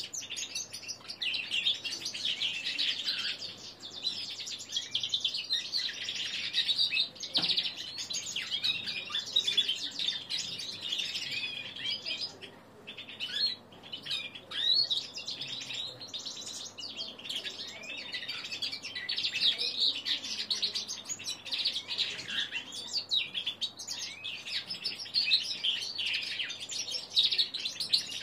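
Young male linnet × canary hybrid, about three months old, singing a rambling, twittering practice song while still learning to sing. The warbling runs almost without pause, with one short break about halfway through.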